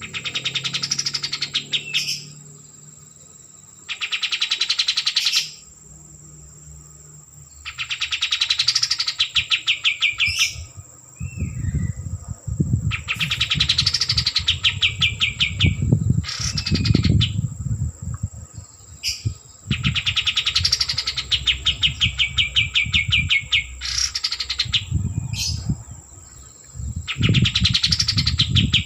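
Kapas tembak songbird singing: fast trilled phrases about a second and a half long, each falling in pitch, repeated every three to four seconds. A steady high thin whine runs underneath, with low rumbling noise in the second half.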